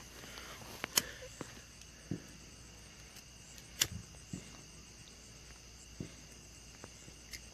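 Crickets chirping steadily in the night, with a few sharp clicks or taps, the loudest about a second in and another near four seconds.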